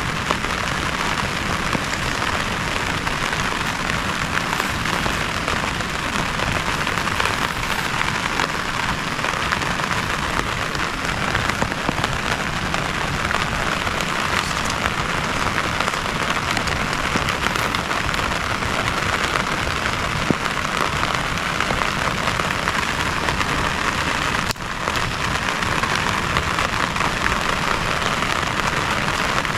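Heavy rain falling steadily on a surface: a dense, even hiss with scattered drop hits, briefly dipping about 25 seconds in.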